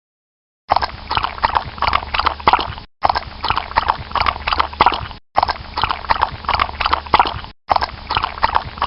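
Rhythmic clip-clop of hooves, several strikes a second, heard in four clips of about two seconds each, each cut off abruptly.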